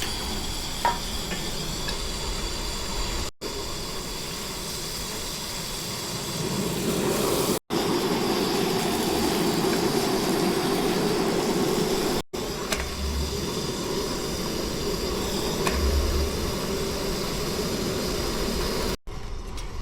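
Gas hiking stove burner running with a steady hiss, broken by several brief cuts.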